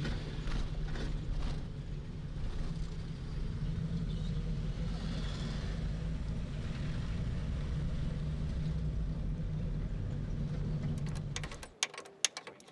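An old Renault 4's engine and road noise heard from inside the cabin while it is driven, a steady low rumble. Near the end the rumble cuts off suddenly and a run of sharp clicks and taps follows.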